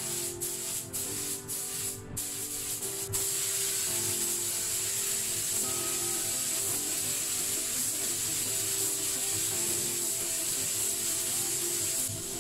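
Compressed-air gravity-feed spray gun hissing as it sprays base lacquer onto an aluminium wheel: a few short bursts in the first three seconds, then steady spraying.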